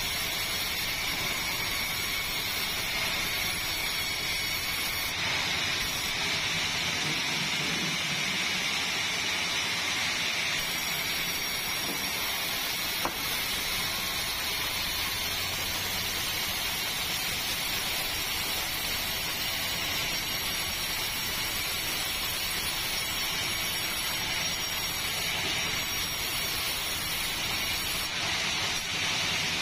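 Sawmill machinery running steadily: a constant hissing noise with a steady high whine held throughout.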